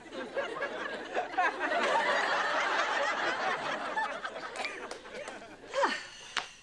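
Studio audience laughing, swelling about two seconds in and dying down near the end. A brief falling vocal sound from one person comes just before the end.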